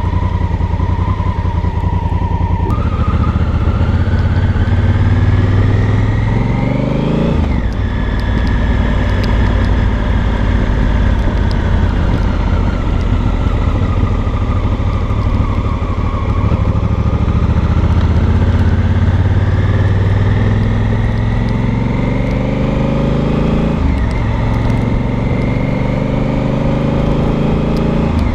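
Honda Africa Twin Adventure Sports' parallel-twin engine and exhaust pulling at low road speed. The pitch rises as the bike accelerates and drops sharply twice, about seven and a half and twenty-four seconds in, at upshifts, over steady road and wind noise.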